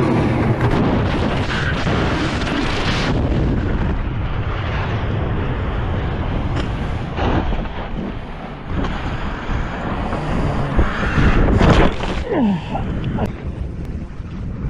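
Deep rumbling roar like an explosion, with a hiss that cuts off about three seconds in while the rumble slowly dies down. Then come scattered thumps and gusts, and a short falling whine near the end.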